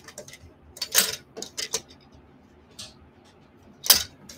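A run of short plastic clicks and clatters, the loudest near the end: the clips of a plastic pants hanger being snapped onto a pair of shorts.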